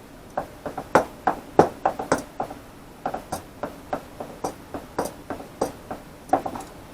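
Small hard objects clicking and clacking on a workbench as parts and tools are handled, an irregular run of sharp knocks several a second, loudest between about one and two and a half seconds in.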